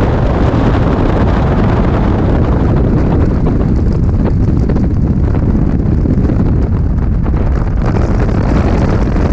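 Loud, steady rush of freefall wind buffeting the camera's microphone during a skydive.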